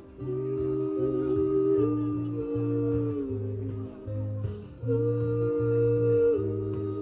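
Live acoustic pop: two voices sing a wordless 'ooh' in two-part harmony, holding notes and sliding between pitches, over guitar with a steady pulse of low notes about twice a second.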